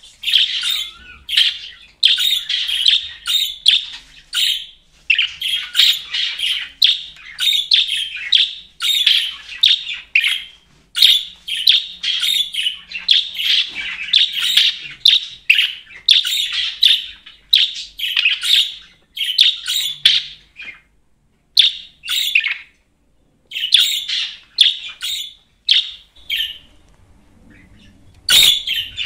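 Budgerigar chirping and warbling in a rapid, almost unbroken run of short high chirps, which thin out into scattered calls with short pauses after about 20 seconds.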